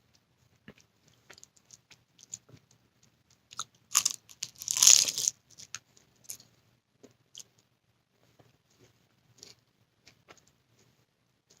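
Close-up mouth sounds of someone eating baklava made with crushed cashews and peanuts: scattered small chewing clicks, with a loud burst of crunching about four to five seconds in as the flaky pastry is bitten.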